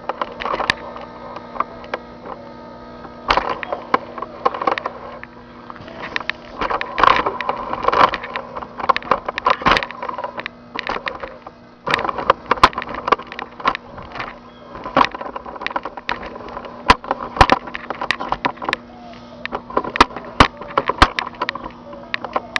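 Microwave oven arcing inside as it runs: irregular sharp crackling snaps, coming in bursty clusters, over the steady hum of the running oven.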